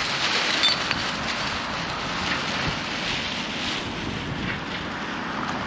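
Wind buffeting the microphone, a steady rushing noise.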